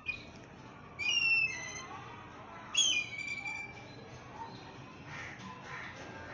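Black kite calling: two loud, high whistled calls, about a second in and near three seconds in, each falling in pitch and then holding, with a short call right at the start.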